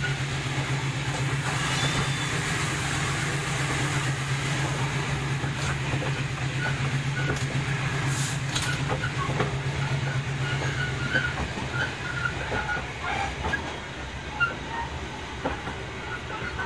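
Passenger train running, heard from inside the coach: a steady low hum under a rumbling rush, with scattered small rattles and clicks. The hum fades out about two-thirds of the way through.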